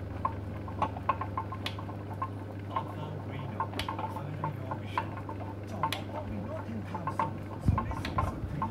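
Potter's wheel spinning with a steady low hum while wet hands shape a small clay cup on it, with scattered light clicks and ticks. A low bump sounds near the end.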